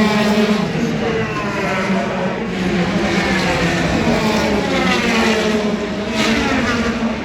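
IndyCar field's 2.2-litre twin-turbo V6 engines running at pace-lap speed as the cars pass in a line. Several overlapping engine notes glide up and down in pitch as cars go by.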